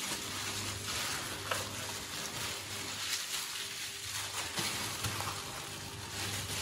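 Wet squelching and squishing of marinated mutton pieces being kneaded by hand in plastic gloves, working the yogurt-and-oil spice paste into the meat in a plastic bowl. Continuous irregular wet crackle, with a faint low hum underneath.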